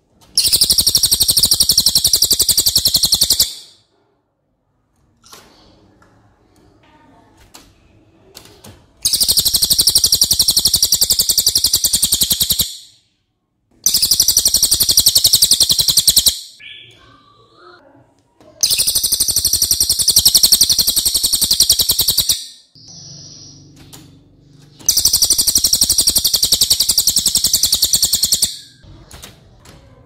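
Cililin songbird singing its long, dense, high 'nembak' trills of very fast repeated notes, in five loud bursts of three to four seconds each. Short, softer calls fill the pauses between the bursts.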